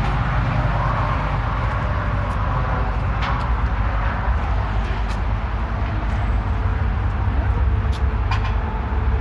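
Steady low rumble and hiss of outdoor ambient noise, with a few faint clicks.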